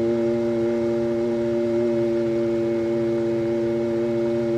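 Heathkit SB-220 linear amplifier keyed up and transmitting at high power, giving a loud, steady buzzing hum with no change in pitch.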